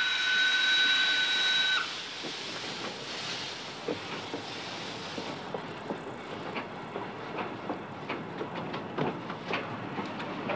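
Steam train whistle blowing one steady note, cutting off about two seconds in. After it comes a hiss and irregular clicking rattle of a train on the rails, the clicks growing more frequent toward the end.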